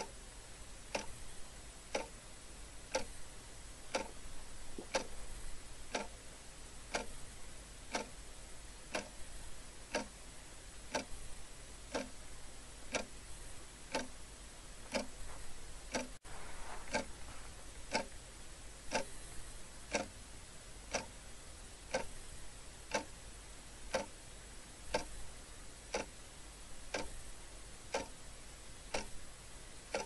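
Quartz wall clock ticking steadily, one sharp tick a second.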